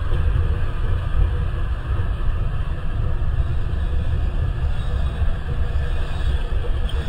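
Amtrak California Zephyr's baggage car and bilevel Superliner passenger cars rolling past close by: a steady, loud rumble of steel wheels on the rails.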